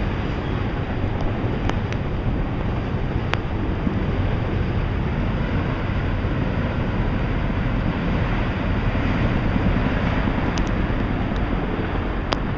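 Autorack freight cars rolling past on the rails in a steady rumble, with wind buffeting the microphone and a few sharp clicks. The last car passes near the end.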